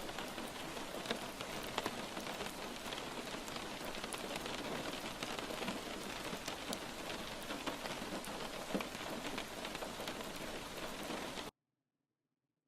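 Steady rain falling, with scattered sharp ticks of individual drops through the hiss. It cuts off abruptly near the end into dead silence.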